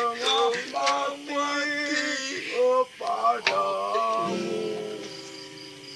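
A voice singing a melodic line of an Indonesian pop ballad over music, followed from about four seconds in by steady held notes that fade away.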